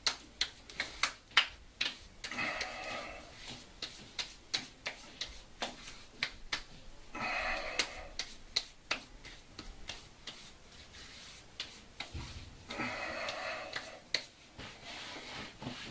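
Hands patting and slapping witch hazel onto a freshly shaved face: a quick, uneven run of sharp skin slaps, with three short hissy stretches about five seconds apart.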